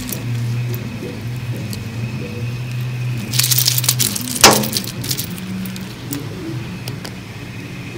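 A tangled clump of black 3D-printer filament handled in the fingers: small plastic clicks and rustling, with a sharp clink about four and a half seconds in, over a low steady hum.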